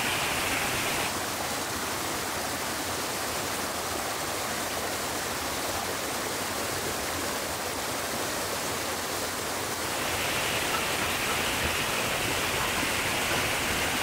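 Steady rushing of small waterfalls and cascades at an ice-edged mountain river spring. The water noise grows a little duller about a second in and brightens again around ten seconds in.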